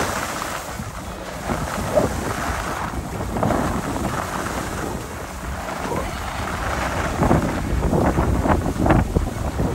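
Wind rushing over the microphone of a camera carried by a moving skier, with skis scraping on the snow in short irregular bursts during the last few seconds.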